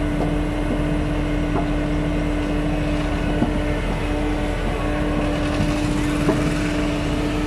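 Kato NK-3600 truck crane's diesel engine running steadily, a constant drone with one even tone and no change in pitch, with a few light clicks over it.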